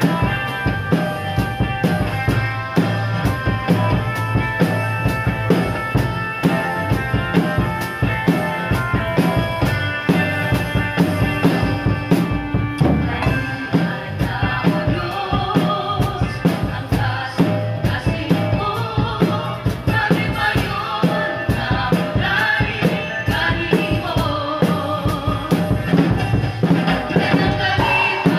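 Drum kit played along to a recorded song: a steady beat of bass drum, snare and cymbals over the backing track, with a singing voice coming in about halfway through.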